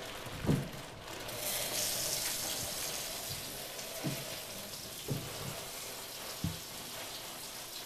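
Kitchen tap running water into the sink, a steady hiss that starts suddenly and slowly eases, with a few soft knocks of cookware and utensils on the counter.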